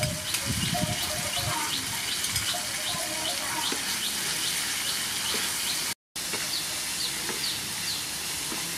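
Stir-fry sizzling in a frying pan as it is stirred with a wooden spatula. Over it a bird repeats a short high chirp, about two or three times a second. All sound cuts out briefly about six seconds in.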